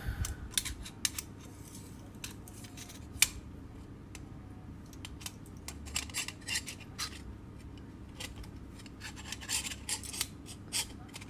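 Scattered light metallic clicks and scrapes as a stainless steel butt hinge is handled and measured, with one sharper click about three seconds in and small bursts of clicking later on.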